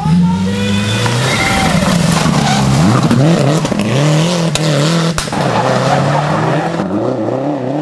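Subaru Impreza N4 rally car's turbocharged flat-four revving hard, its pitch rising and falling over and over as the driver works the throttle and gears through a tight corner. Two sharp cracks come about halfway through.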